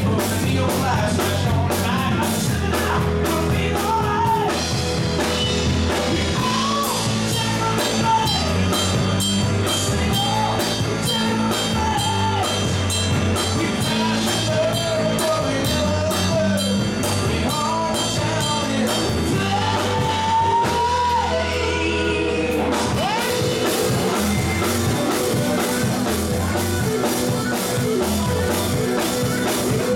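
Live rock band playing: drum kit, bass guitar, electric guitars and electric keyboard, with a lead vocal over the top.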